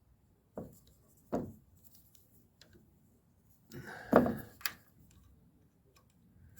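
Handling noise from fitting wire harness connectors onto a wiper motor: two short knocks, then a louder cluster of clicks and rubbing about four seconds in.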